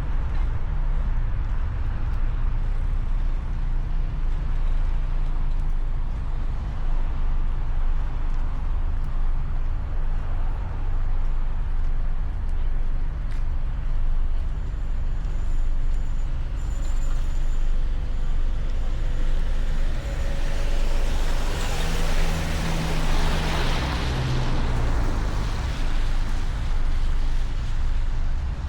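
A car driving on a snowy road: a steady low rumble of engine and tyres. Between about 20 and 26 seconds in, a rushing hiss swells and fades.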